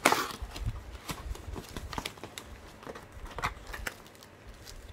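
Paper and plastic packaging being handled: a kraft paper envelope is opened and a plastic-wrapped item pulled out. The loudest part is a short rustling burst right at the start, followed by scattered crinkles, crackles and light taps.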